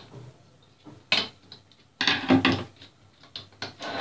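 Screwdriver working a screw out of a switch-mode power supply's sheet-metal chassis, with small ratchet-like clicks, then the metal case and circuit board clattering as they are handled: a sharp clatter about a second in and a louder rattle around two seconds.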